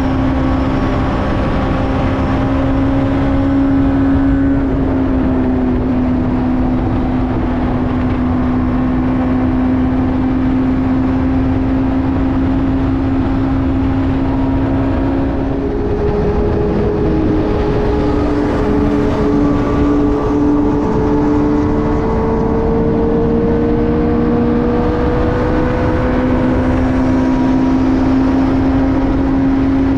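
Benelli TNT600i's inline-four engine running at steady high revs under way, over a constant rush of noise. About halfway through, the engine note shifts and a second, higher engine tone slowly rises for several seconds before the steady note returns.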